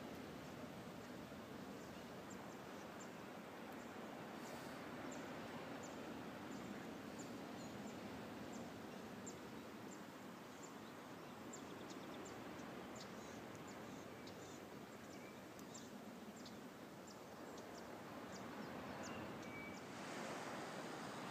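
Faint countryside ambience: a steady soft hiss with many short, high chirps of small birds scattered throughout. Near the end a louder rushing noise comes in.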